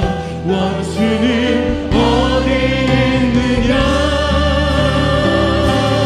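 Contemporary Korean worship music: voices singing a praise song in long held notes with vibrato over keyboard and band accompaniment. It swells to a fuller sound about two seconds in.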